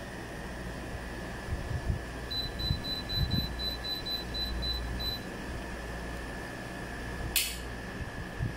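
Split-type air conditioner beeping in a quick run of short high beeps, about four a second for nearly three seconds, as the remote's temperature buttons are pressed repeatedly. Under it a steady low hum and faint high whine; one sharp click near the end.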